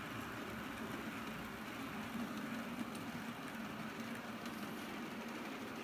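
H0-scale model tank wagons rolling along the track, a steady light rattle of small metal wheels on the rails.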